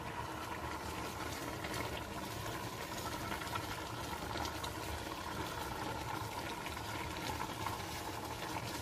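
Beans boiling hard in a pot of water, a steady bubbling, with a wooden spoon stirring through them.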